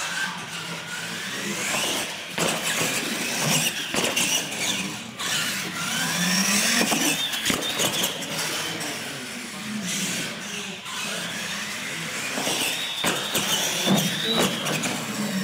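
Electric motors of a radio-controlled monster truck whining, rising in pitch three times as it accelerates, with several sharp knocks as it hits ramps and lands.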